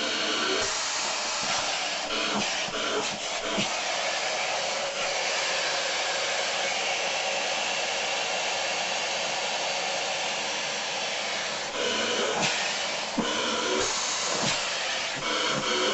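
Dyson upright vacuum cleaner running steadily, its hose brush tool being drawn through a long-haired cat's fur. The suction noise wavers and changes in places as the nozzle is pressed into the fur and lifted, most in the first few seconds and again toward the end.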